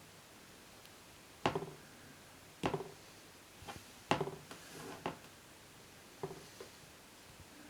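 A series of sharp knocks and clicks at irregular intervals of about a second, with the loudest about four seconds in and fainter ones between, like hard objects being handled.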